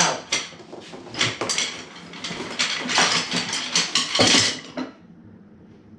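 Bundles of wooden drumsticks clattering and knocking against each other and the cardboard box as they are pulled out, with packaging rustling; it dies down near the end.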